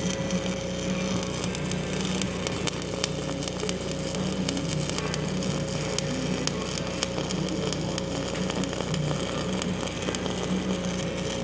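Electric arc welding on steel plate: a steady crackle and sizzle from the arc over a constant electrical hum.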